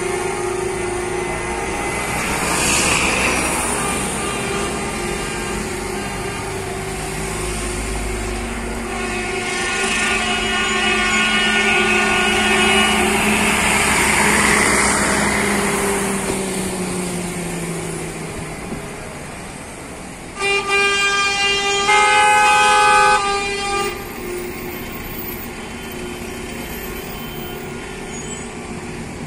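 Coaches driving slowly past in a protest convoy with engines running, honking their horns. A held multi-note horn sounds midway, then two loud horn blasts that cut on and off sharply, the second the loudest.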